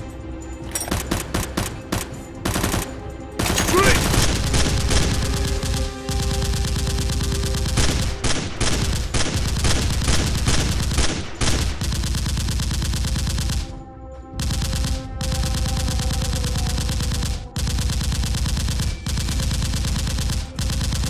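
Rapid automatic gunfire sound effects in long bursts broken by short pauses.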